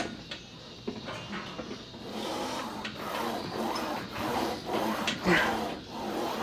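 Smith machine bar clicking and sliding on its guide rails during a set of incline presses, with busy gym noise behind and one loud knock about five seconds in.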